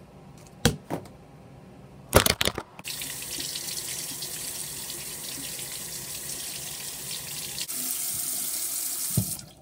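A few knocks, then about three seconds in a bathroom sink faucet starts running, its water splashing over a soapy cloth hand puppet held in the stream. Near the end the water falls straight into the basin before it stops.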